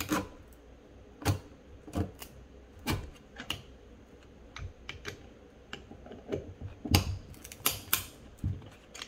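Ratcheting band-type piston ring compressor being tightened with its square key: about a dozen sharp, irregularly spaced ratchet clicks, the loudest about seven seconds in, as the band squeezes the piston rings closed around the piston.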